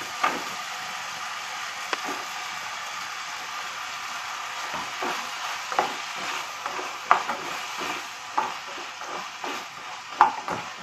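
Chopped brinjal frying in oil with tomato masala in a coated pan: a steady sizzle, with a wooden spatula scraping and knocking against the pan as the vegetables are stirred, the strokes coming more often in the second half.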